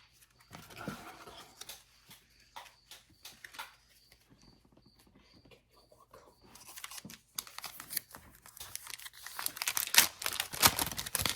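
Foil wrapper of a retail hockey-card pack being torn open and crinkled. It starts as scattered light rustles and clicks, then gets loud and dense for the last few seconds.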